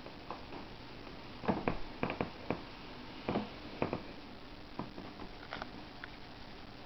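Handling noise: a cluster of soft knocks and scrapes as a motorcycle helmet is turned by hand on a tabletop, with a few lighter taps in the second half.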